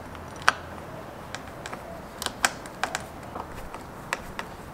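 Irregular sharp clicks and taps of a hand screwdriver and small metal fittings as the snorkel's mounting bracket is screwed onto the car's A-pillar, with the loudest clicks about half a second in and around two and a half seconds in.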